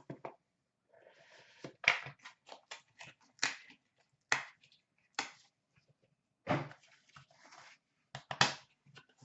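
Hockey card box and packaging being opened and handled by hand: a string of sharp clicks and snaps mixed with brief crinkly rustling of wrapper or cardboard.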